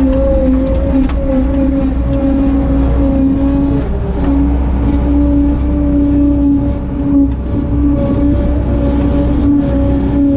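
Bobcat 743 skid steer's diesel engine running at steady high revs, its pitch wavering slightly, with a brief change in pitch about four seconds in.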